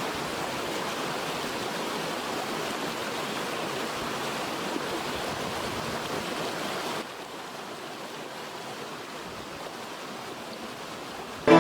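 Steady rushing noise that steps down to a quieter level about seven seconds in.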